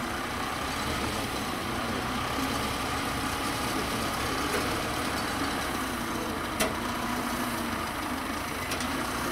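Diesel engine of tracked farm machinery running steadily at low speed, with one sharp click about six and a half seconds in.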